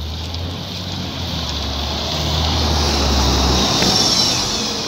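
City bus pulling away from the stop and driving past close by. Its engine drone and road noise build to their loudest about three to four seconds in, and the low engine hum drops away shortly after.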